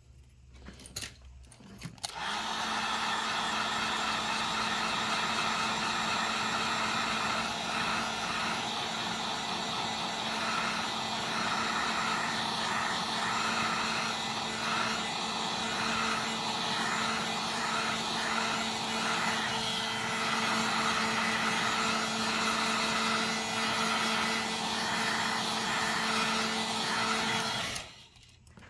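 Heat gun blowing hot air steadily with a low hum, switched on about two seconds in and off near the end. It is warming the phone's screen to soften the adhesive before prying.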